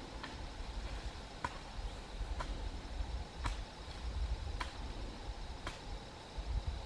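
A hand digging tool chopping into soil, six sharp strikes at about one a second, over a steady high drone of insects.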